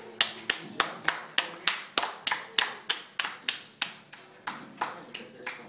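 Hands clapping in applause as a song ends, about three claps a second, growing weaker and more scattered near the end.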